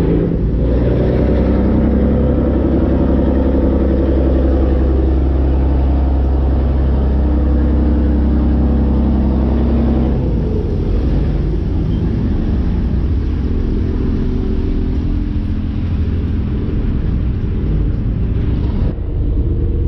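A riverboat's engine running loud and low while the boat pulls away from the pier, with a wavering, droning pitch. The deepest part of the rumble drops away about halfway through.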